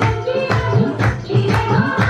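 Dance music: a folk song with a singing voice over a drum beat of about two strokes a second, the low drum strokes bending upward in pitch.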